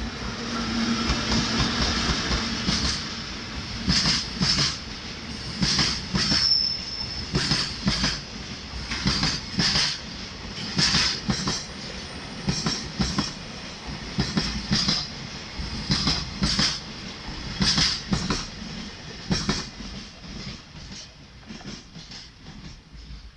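Freight train wagons rolling past, wheels clacking over rail joints in a steady repeating rhythm, with a brief wheel squeal; the sound fades away toward the end.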